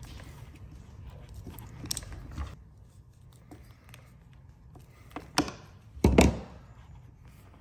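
Hand crimping pliers squeezing a ring terminal onto a wire, with small crunching clicks, then a sharp click and a louder knock on the wooden workbench a little after five seconds in as the crimped wire and tool are set down.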